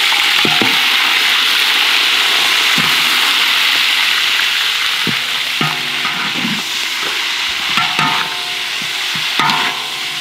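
Whole tokay geckos frying in hot oil in a wide metal wok: a loud, steady sizzle that eases a little over the seconds. A metal spatula scrapes and clinks against the wok several times as it turns them.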